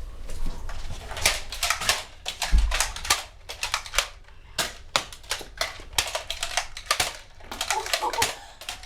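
Nerf foam-dart blasters firing and darts striking things: many sharp clacks at an uneven pace.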